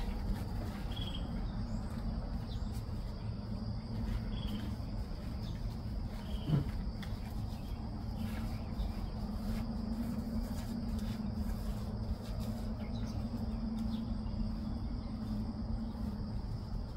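Steady high drone of insects over a low background rumble, with a few short faint chirps and a single sharp knock about six and a half seconds in.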